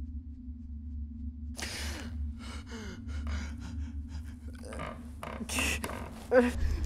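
A man gasps about a second and a half in, then breathes hard in a run of short, ragged breaths, with a louder groaning breath near the end, over a low steady drone.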